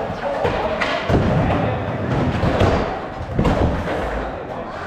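Skateboards knocking and thudding on ramps and ground, several sharp knocks, over a background of crowd chatter and music.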